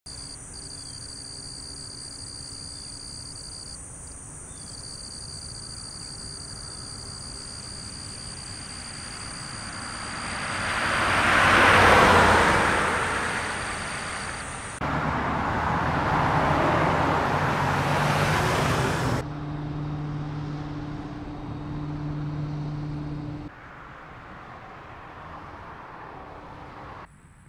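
A single car passes on a highway, rising and fading about twelve seconds in, over steady high-pitched tones and a hiss. After that the background changes abruptly several times, ending in a quieter stretch with a low steady hum.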